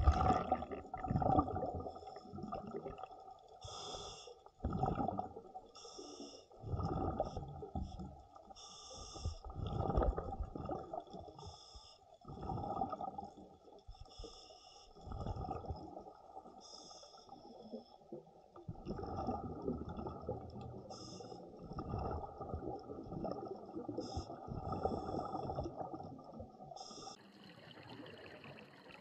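Scuba diver breathing through a regulator underwater, close to the camera: a breath every two to three seconds, each with its rush of exhaled bubbles. Near the end it gives way to a fainter, steady water hiss.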